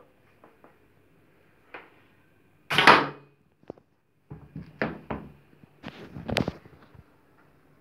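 A homemade plastic-pipe blowgun fired with one hard puff of breath, the dart hitting a wooden plank board, about three seconds in. Several knocks and rustles follow.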